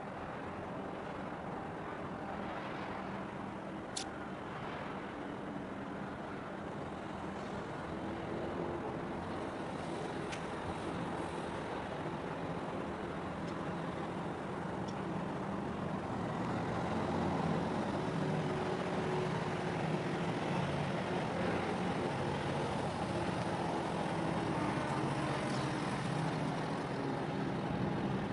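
Steady low drone of ship diesel engines, with a few steady low hums, growing gradually louder.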